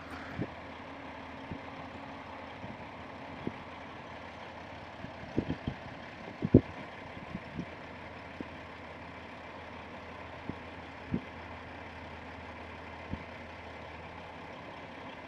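Heavy diesel engines of a log truck and a skidder running steadily at low level, with scattered low thumps, the loudest about six and a half seconds in.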